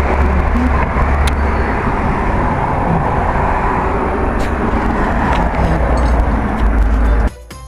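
A vehicle engine runs with a steady, loud low rumble, then cuts off suddenly near the end as music starts.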